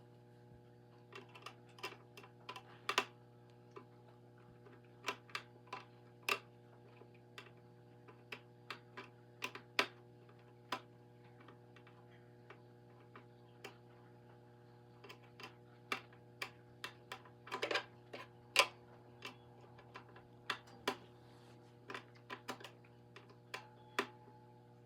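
Irregular clicks, taps and knocks of hands handling a plastic toy carousel and its battery compartment, over a steady low hum.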